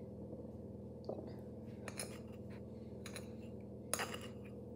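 A few faint clicks and taps of a metal spoon as cake batter is spooned from a bowl into cupcake cases, the clearest about a second in and near the end, over a steady low hum.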